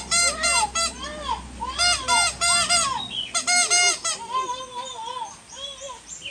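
Rapid bursts of high, squawking animal calls, several a second, in three clusters, then fainter calls near the end.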